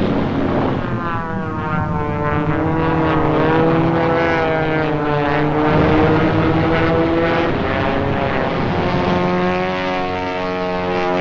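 Propeller aircraft engines droning, their pitch rising at first, then slowly falling and settling to a steady drone.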